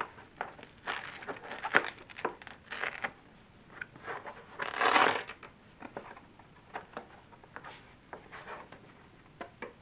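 Handling noise: rustling and crinkling with scattered clicks and taps as lamp parts and packaging are handled, with a louder rustle about five seconds in.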